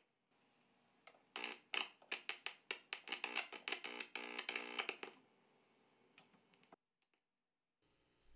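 Rapid crackling and popping from a small JamJar guitar amplifier's speaker as a guitar cable's plug is worked into an electric guitar's output jack: a dense run of clicks with a buzzing edge lasting about four seconds, then dying down.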